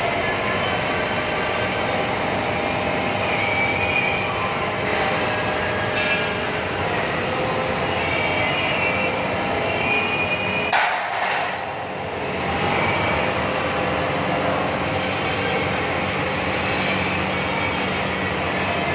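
Steady, dense mechanical din of metal fabrication machinery running, with a sharp metallic knock about eleven seconds in, after which the noise briefly dips.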